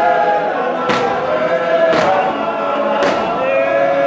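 Male choir singing in harmony, with a sharp thump about once a second from the performers stamping their feet in time.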